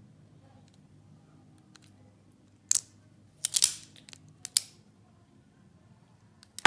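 Leatherman Free P4 multitool being flipped and snapped open and shut by hand, its magnetic handles and free-moving hinges clacking in a few sharp metallic clicks: one a little under three seconds in, a quick cluster about half a second later, and two more around four and a half seconds.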